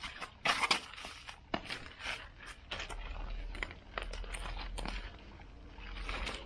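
Pulled weeds being handled and gathered from a pile on a block-paved drive: irregular rustling, scraping and clicking, with a faint low hum coming in about halfway.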